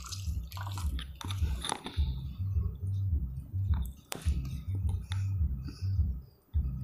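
A damp cotton pad rubbing and squishing over skin as cleansing milk is wiped off the face, with small clicks, over a low thumping that pulses about twice a second.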